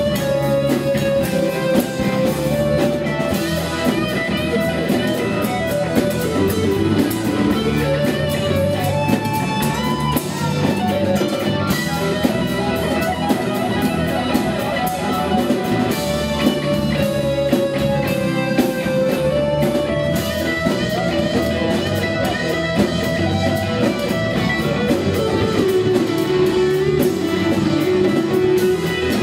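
Live rock band playing an instrumental passage without vocals: a sustained melodic lead line over guitars, Hammond organ, bass and drums.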